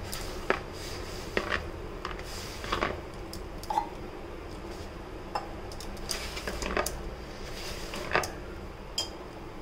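Hands mixing and kneading flour, ghee and water into dough in a plastic bowl: soft rubbing and squishing with irregular light clicks and knocks.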